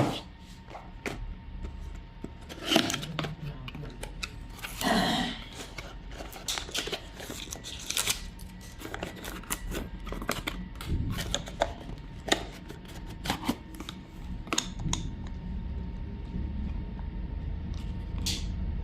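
Hands unpacking a small boxed gadget: packaging rustling and crinkling, with many quick clicks and taps. Longer rustles come about three and five seconds in.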